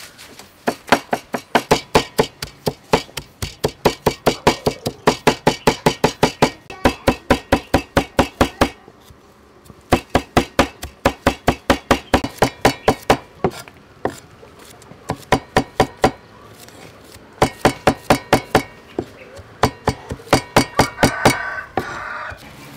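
Cleaver chopping garlic and red chilies on a round wooden chopping block: rapid knocks, about five or six a second, in runs with short pauses between them.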